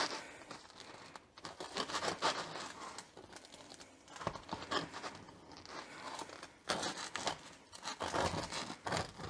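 A knife sawing through a crusty loaf of sourdough bread, the hard crust crackling and crunching in uneven strokes as the blade works down the middle.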